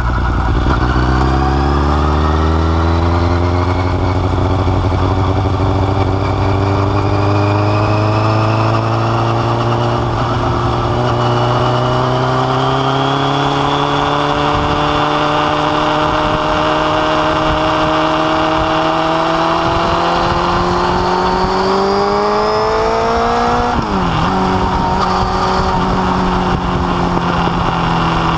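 Yamaha FZS600 Fazer's inline-four engine heard through a Delkevic oval carbon slip-on silencer with its baffle removed, riding on the road. The exhaust note rises as the bike pulls away, then climbs slowly for a long stretch. Near the end it dips sharply and then runs steady.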